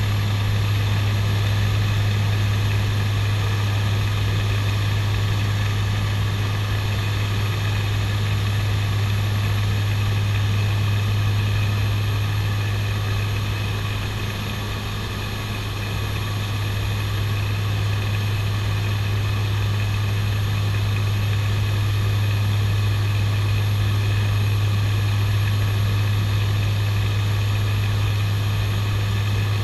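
Twin Garrett TPE331 turboprop engines and propellers of a CASA NC-212-200 Aviocar in flight, heard inside the cockpit: a steady drone with a strong low hum, dipping slightly in level about halfway through.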